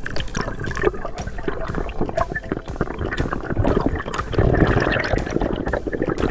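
Seawater gurgling and sloshing close to the microphone, with many small bubbling clicks, heaviest about halfway through.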